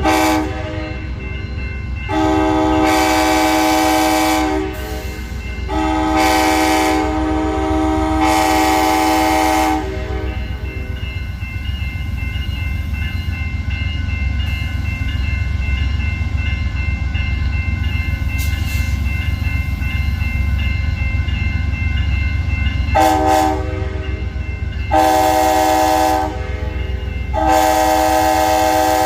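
Amtrak locomotive air horn sounding a chord of several tones. Three long blasts come in the first ten seconds, then after a long gap a short toot and two more long blasts. Under it runs the steady low rumble of the train.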